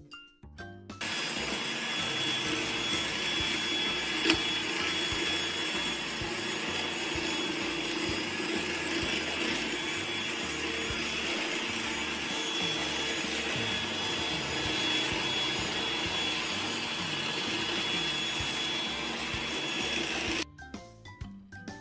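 Steady whirring motor noise with a hiss, starting abruptly about a second in and cutting off abruptly near the end, with a single sharp click about four seconds in.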